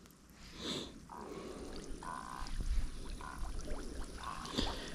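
Faint trickling and sloshing of water, with a few short splashes, around someone wading with a cast net.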